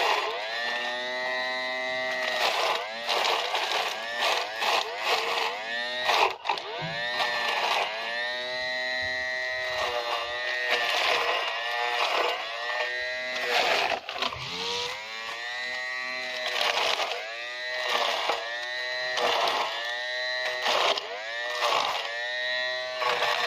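Small 12 V DC electric motor of a homemade weeding tool running with a whine, its pitch repeatedly dipping and recovering every second or two as the blade works into the grass.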